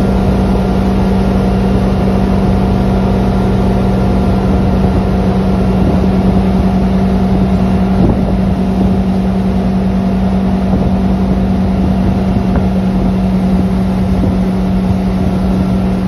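Ski boat engine running steadily at high speed, a constant unchanging hum, with water rushing past the hull.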